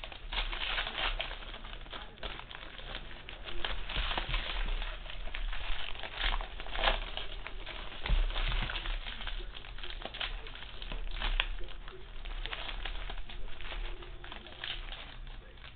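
Foil trading-card pack wrappers crinkling and tearing as packs are opened by hand, with the rustle of cards being pulled out: a continuous crackle of many small crinkles.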